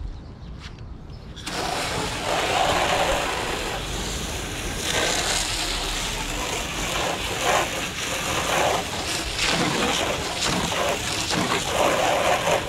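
Garden hose spraying water into a hard plastic tub, the water hissing and splashing against the plastic and the puddle in the bottom as the tub is rinsed out. The spray starts suddenly about a second and a half in and runs on steadily.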